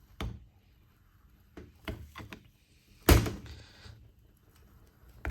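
Workshop handling noise: a few knocks and clicks of a tool and brake caliper parts being moved and set down, with one loud, sharp thunk about three seconds in.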